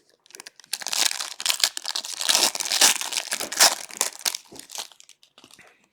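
Plastic wrapping of a hockey card box being torn open and crinkled, a dense crackling with many small snaps, dying away near the end.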